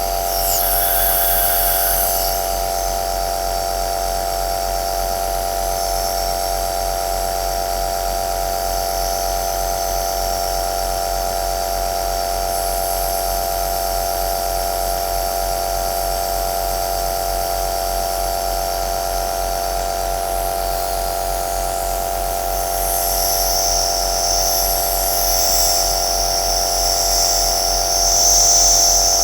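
Compressor nebulizer running steadily: a constant motor hum with a mid-pitched drone and an airy hiss on top. The hiss grows louder and brighter over the last several seconds.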